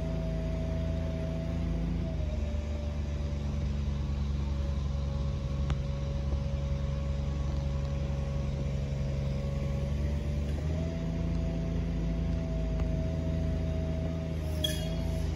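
An engine running steadily, its pitch dipping slightly about two seconds in and coming back up about eleven seconds in.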